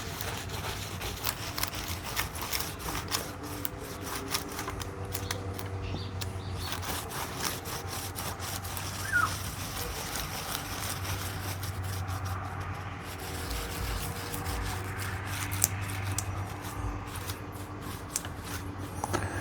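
Rag soaked in rubbing alcohol being rubbed across the tops of 18650 lithium-ion cells, a continuous scratchy wiping broken by many small clicks.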